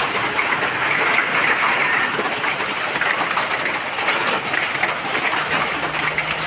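Hailstones falling and hitting the ground and nearby surfaces: a dense, steady patter of countless small hits.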